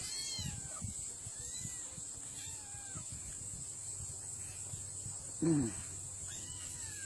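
Hungry kittens mewing: several thin, high, arching mews spread out, with one lower, louder falling cry about five and a half seconds in. A steady high insect chirring runs underneath.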